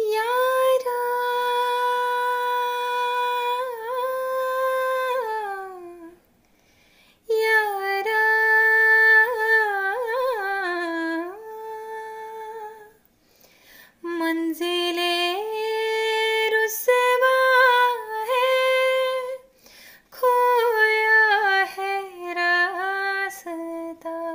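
A woman singing solo without accompaniment: a slow melody of long held notes and pitch glides in four phrases, with short breaks for breath between them.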